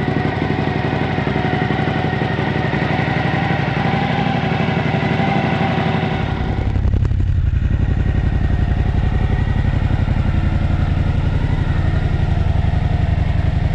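Suzuki V-Strom 1050's V-twin idling steadily through a new Mivv Speed Edge slip-on exhaust, with a deeper exhaust note than stock. About halfway through, the sound turns deeper, with less treble.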